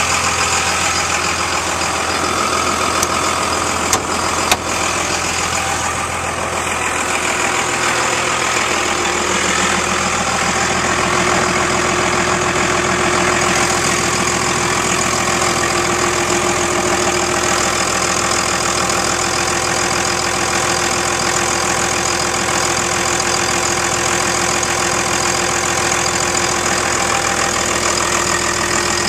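1999 Dodge Ram 2500's 5.9 L Cummins inline-six turbo-diesel idling steadily, with two brief clicks about four seconds in.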